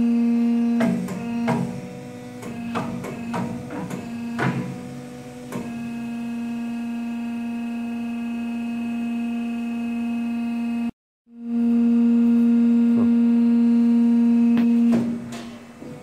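Saw-blade tensioning machine running with a steady electric hum. A run of metal clicks and clanks comes in the first few seconds and again near the end. The sound cuts out briefly about eleven seconds in, and the hum returns louder.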